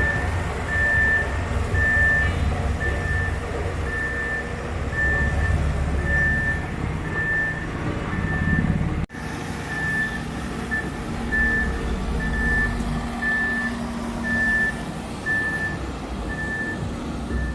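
Reversing alarm on a construction vehicle beeping steadily about once a second over the low rumble of a heavy diesel engine. The sound cuts out for an instant about nine seconds in.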